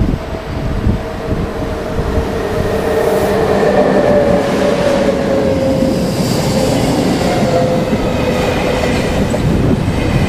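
SBB Re 460 electric locomotive and double-deck passenger coaches passing close by. A steady whine from the locomotive sinks slightly in pitch as it goes by, over a heavy rumble of wheels and rail. In the second half come the rush and wheel clatter of the coaches.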